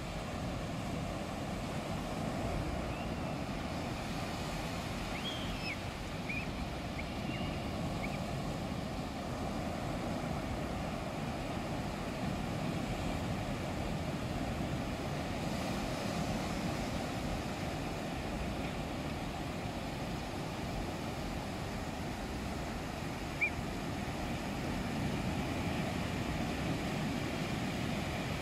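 Small waves breaking and washing up a sandy beach: a steady rush of surf, with a few faint high chirps about five to eight seconds in and a short sharp sound near the end.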